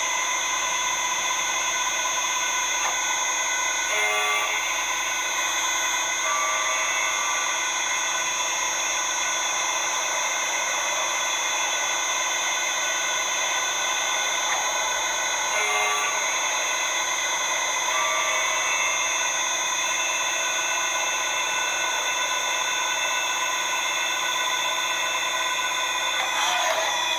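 CK28 slant-bed CNC lathe running: a steady machine whine of several tones with cutting noise. There are brief changes in the sound about 4 and 16 seconds in, and a gliding shift in pitch near the end as the machine changes speed.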